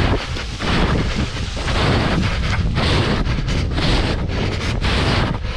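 Loud wind buffeting the microphone of a camera carried at a run, a low rumble that rises and falls in gusts.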